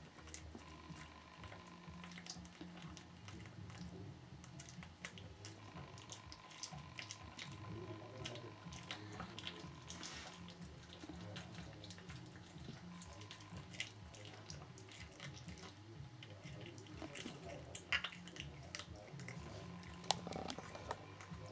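Cat eating a chick: irregular wet smacking and small clicks as it chews, through a faint steady hum.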